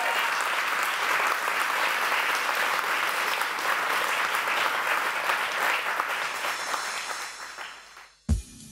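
Audience applauding, a dense clapping that fades out about seven to eight seconds in. Just before the end it cuts to a sharp drum beat.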